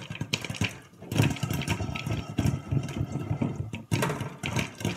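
Popcorn kernels popping in a covered frying pan with a glass lid over a strong gas flame: a dense, irregular run of sharp pops with a brief lull about a second in.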